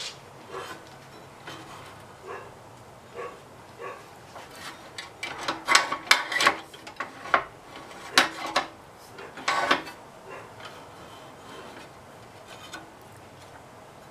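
Clicks, knocks and scrapes of hands working the rototiller's V-belt around its pulley and steel belt-guide bracket, with a run of sharper, louder knocks in the middle.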